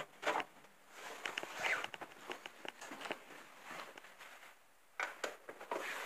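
A door knob rattling and clicking as it is turned, then shuffling footsteps and irregular rustling and knocks.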